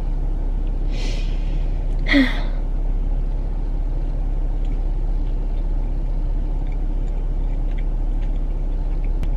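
Steady low hum of an idling car heard from inside the cabin, with two short breathy hisses about one and two seconds in and faint small clicks later on.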